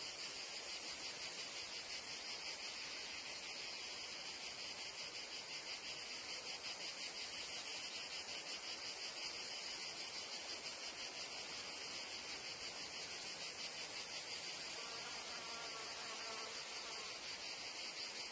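Meadow insect chorus: crickets and cicadas chirring steadily in a dense, high, finely pulsing wash. A fly's faint buzz passes about fifteen seconds in.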